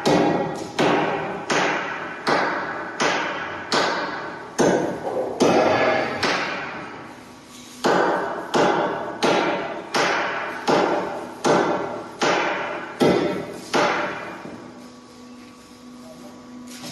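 Steel plate struck again and again with a hammer, sharp metallic clangs about two a second, each ringing out. The blows stop for about a second midway, start again, then cease for the last few seconds.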